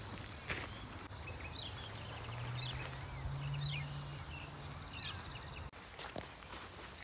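Footsteps on a forest track early and late, and in the pause between them several short high bird chirps over a low steady hum that steps up in pitch partway through.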